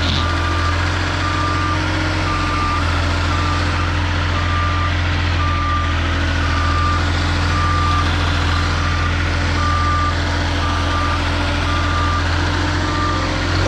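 Forklift reverse alarm beeping steadily, about once a second, over its engine running. The machine is backing up.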